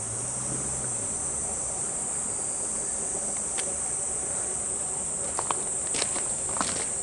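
Cicadas droning steadily at a high pitch, with a few footsteps on gravel from about five seconds in.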